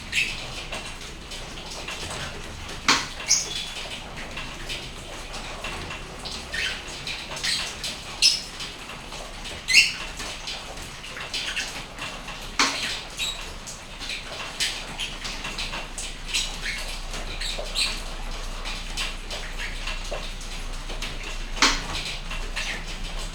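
Steady rain with sharp, high chirps from a pet lovebird scattered throughout, the loudest about ten seconds in.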